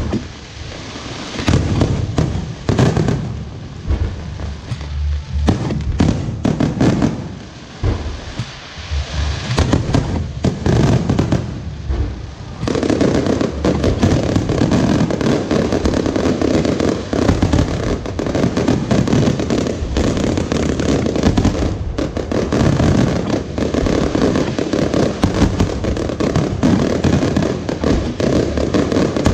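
Fireworks display: a string of separate bangs and bursts, becoming a dense, continuous barrage of bangs and crackling about twelve seconds in.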